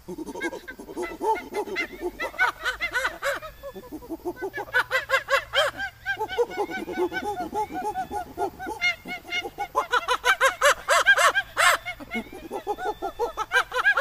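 Imitated chimpanzee-style hooting calls: rapid strings of short hoo-hoo calls, several a second, climbing from low hoots into high shrieks, dropping back and building up again, with the highest climax near the end.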